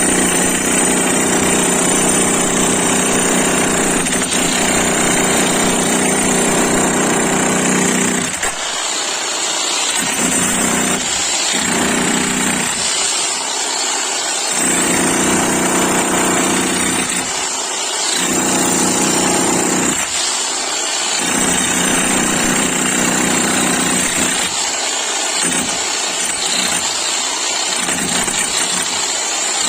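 An 11 kg electric demolition hammer breaking, its rapid hammering loud and steady for about eight seconds, then stopping and restarting in short bouts of one to three seconds, with quicker bursts near the end.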